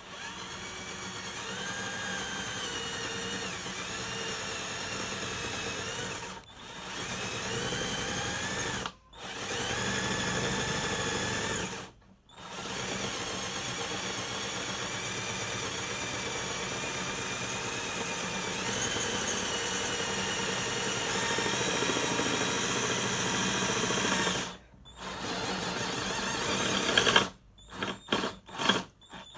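12-volt Ingco cordless drill boring a hole through metal: the motor whines in long runs, its pitch dipping and rising with the load, stopping briefly a few times. Near the end come several short trigger bursts.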